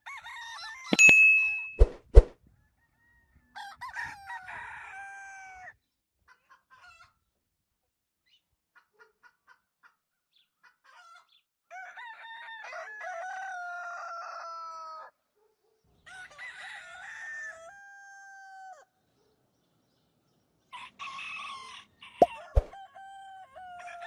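A rooster crows four times, the longest crow about three seconds long, with hens clucking softly between crows. Near the start a few sharp clicks and a bell-like ding sound, with more clicks near the end.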